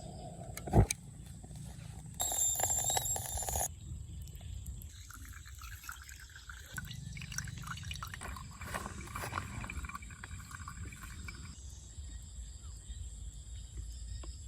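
Water pouring and dripping, with a sharp knock about a second in.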